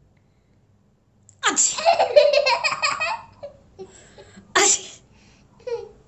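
Staged, artificial sneezing: after a moment of quiet, a loud forced sneeze breaks into a burst of laughter, then a second short, sharp sneeze follows about three seconds later.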